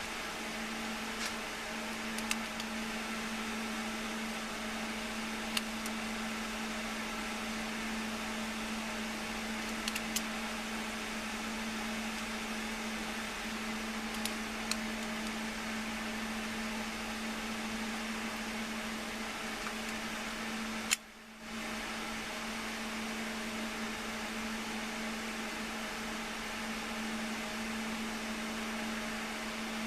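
Steady mechanical hum with a constant low tone under an even hiss, broken by a few faint clicks and one sharper click about 21 seconds in, followed by a brief drop in level.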